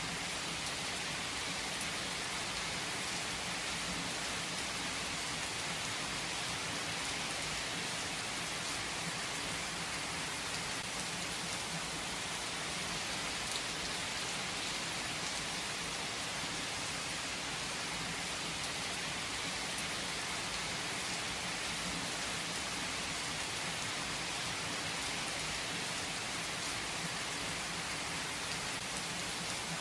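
Heavy rain falling steadily, an even hiss with the odd distinct drop.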